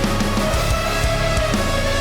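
Background music: a loud rock or metal track with distorted guitar and a steady drum beat.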